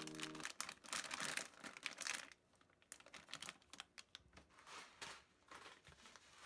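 Faint crinkling and rustling with a quick run of small clicks and taps, busiest in the first couple of seconds and sparser after.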